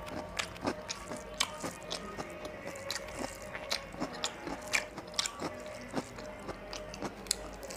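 Close-miked sounds of a person eating rice and chicken curry by hand: wet chewing and lip smacks as irregular sharp clicks several times a second, with fingers mixing rice into the curry on the plate.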